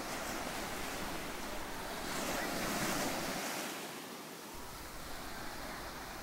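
Ocean surf washing onto a sandy beach, a steady rushing wash that swells about two to three seconds in and then eases.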